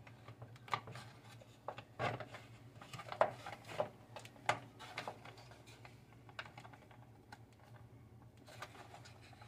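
Irregular small clicks and taps of a small Torx screwdriver working a screw into the plastic fan housing of a battery charger, with plastic parts knocking as they are fitted.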